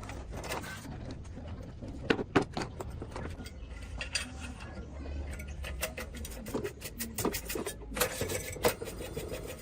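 Small metal and plastic parts clicking and knocking as they are handled and worked on during the repair of a rice cooker. There are two louder knocks about two seconds in and a quick run of small clicks near the end, over a low steady hum.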